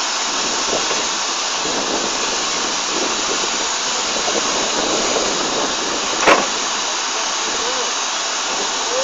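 A standing steam locomotive hissing loudly and steadily as it lets off steam. There is one sharp clank about six seconds in.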